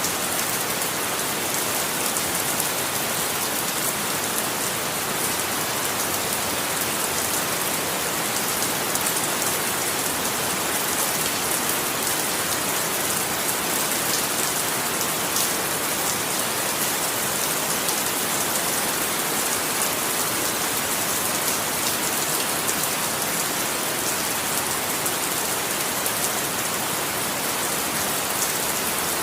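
Steady rain falling, a dense hiss of many fine drops ticking on a surface, with no thunder.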